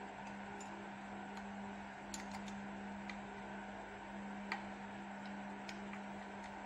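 A few light, irregular metal clicks from fingers handling and fitting the feed dog of an overlock machine, the loudest about four and a half seconds in, over a steady low hum.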